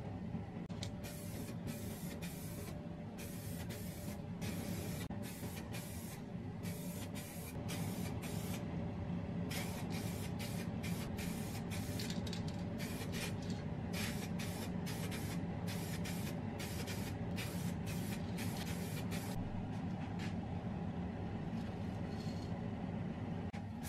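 Aerosol spray-paint can spraying in many short hissing bursts with brief pauses between them, stopping a few seconds before the end, over a steady low hum.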